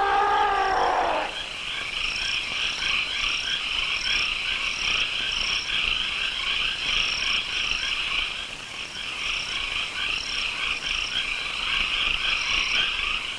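A dense chorus of animal calls pulsing rapidly, with short higher chirps repeating about twice a second. A wavering pitched call fades out about a second in.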